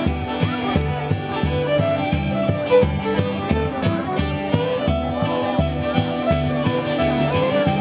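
Violin and acoustic guitar playing an instrumental tune live together: the violin carries the melody over steadily repeated guitar chords.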